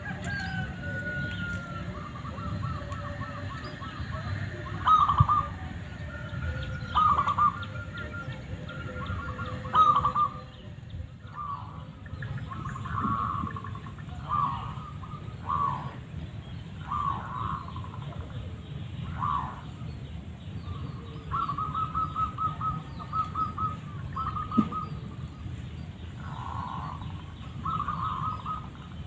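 Zebra dove (perkutut) calls: short cooing phrases and rapid rolling trills, repeated a dozen or so times with pauses between them.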